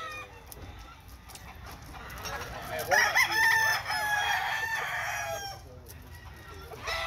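A gamecock rooster crows once, one long crow of about three seconds starting two and a half seconds in.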